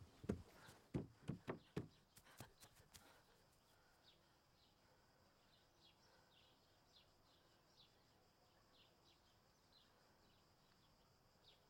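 Bare feet thudding on grass and paving stones, about three steps a second, dying away about three seconds in. After that only faint birds chirping in the garden.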